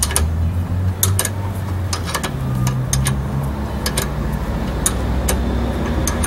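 Sharp metal clicks, scattered about once a second and some in quick pairs, from a hand wrench working the bolts of a rear disc brake caliper. A steady low engine hum runs underneath.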